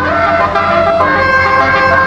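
Basuri 12-note telolet air horn set playing a melody: several horn tones sound together, changing note about every half second, with one note sliding up just after the start.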